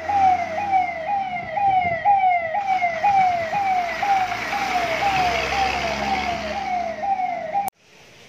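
Fire engine's electronic siren sounding in a fast repeating pattern: each cycle jumps up and glides down in pitch, about two a second. It cuts off abruptly near the end.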